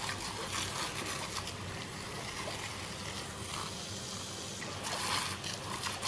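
Garden hose water jet spraying and splattering steadily, with a louder splashing burst about five seconds in as the dog bites into the stream.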